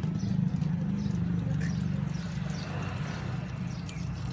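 A steady low engine-like hum, with a few faint chirps above it.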